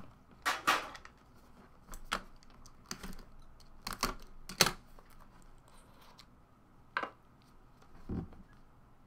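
Cardboard trading-card box being handled and opened on a tabletop: irregular clicks, taps and light scrapes.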